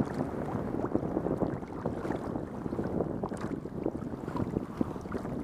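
Lake water splashing and lapping against the hull of a plastic kayak as it is paddled through small waves, heard up close as an irregular crackle, with wind buffeting the microphone underneath.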